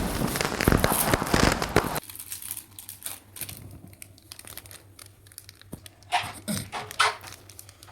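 Crinkling and crackling handling noise, dense and loud for about two seconds, then dropping to softer scattered clicks and rustles.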